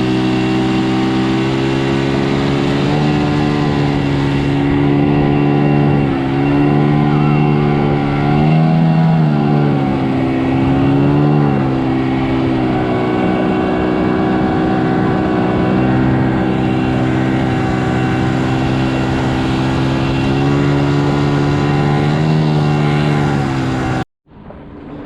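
Outboard motor of a small inflatable boat running steadily under way, its pitch dipping and rising slightly a few times, then cutting off abruptly.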